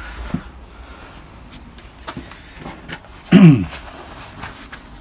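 A man's short wordless vocal sound, falling in pitch, about three and a half seconds in, with a few faint clicks and knocks around it.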